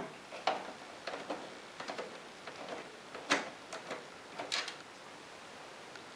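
Small screwdriver turning a fixing screw out of an Epson Stylus Photo PX810FW printer's plastic housing: faint scattered clicks and scrapes, with two sharper clicks a little past three seconds and at about four and a half seconds.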